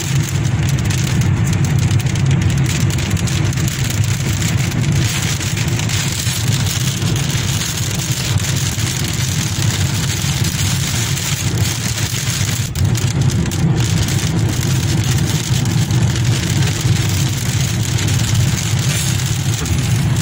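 Steady low road and engine rumble inside a moving car's cabin, with rain on the car and tyres hissing on the wet road.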